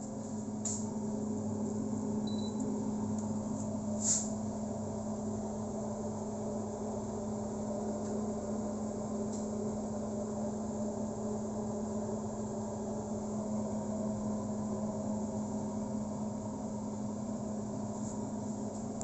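Countertop air-fryer oven running: a steady hum from its motor and convection fan, with a couple of light clicks about a second in and about four seconds in.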